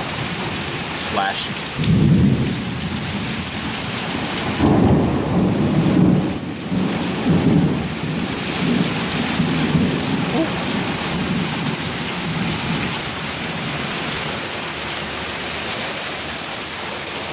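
Heavy rain pouring steadily during a thunderstorm, with thunder rumbling loudly about two seconds in and again from about five to eight seconds in, then fading to a lower rumble.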